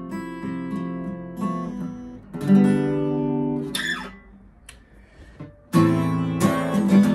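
Steel-string acoustic guitar strummed in chords. A chord rings out about two and a half seconds in and fades to a short quiet gap, and then strumming starts again loudly near the end.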